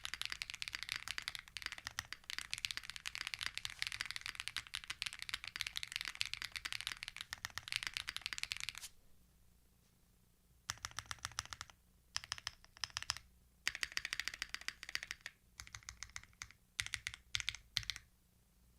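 Custom Krush65 mechanical keyboard with HMX Poros switches and GMK Fuji keycaps being typed on fast and continuously for about nine seconds. After a short pause come separate clusters of keystrokes on the modifier keys.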